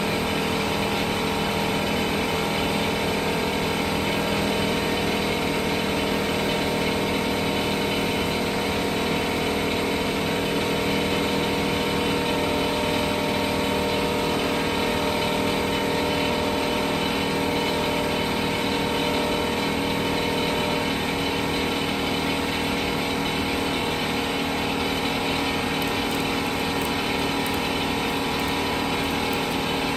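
Air compressor running steadily, a constant machine hum over a hiss, feeding air through a hose into a tractor tire to seat it back on its rim.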